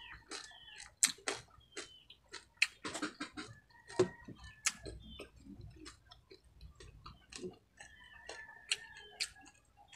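Close-miked crunching and chewing of crispy deep-fried baby crabs: a run of sharp crackling clicks, thickest in the first half and thinning out later. Birds call in the background.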